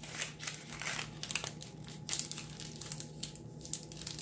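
Pleated paper muffin liner being folded in half and pressed flat by hand: irregular crinkling and rustling of the paper.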